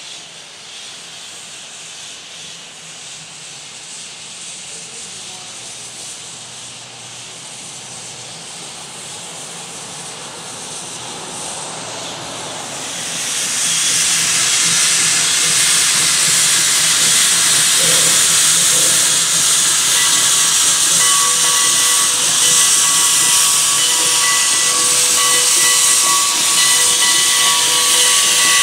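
Heisler No. 6 geared steam locomotive moving slowly closer with steam hissing from low on the engine, likely its open cylinder cocks. The hiss builds gradually, then jumps sharply louder about thirteen seconds in and stays loud. Faint steady whining tones sit under it from about twenty seconds in.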